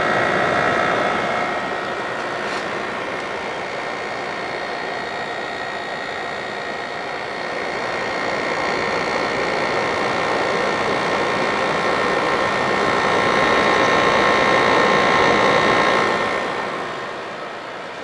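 Vintage Fedders Cool Tote 5000 BTU window air conditioner running in cooling mode: a steady rush of air from its fan with a few steady tones, over a very quiet compressor. It grows louder for a few seconds and eases off near the end.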